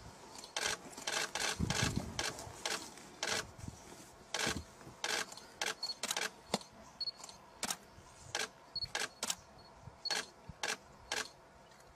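Camera shutters clicking repeatedly and irregularly, sometimes several in quick succession, with short high beeps now and then and a brief low sound about two seconds in.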